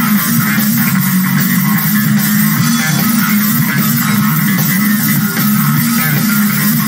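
Live rock music from a bass-and-drums duo: an electric bass riff, loud and steady in the low end, over drums and cymbals.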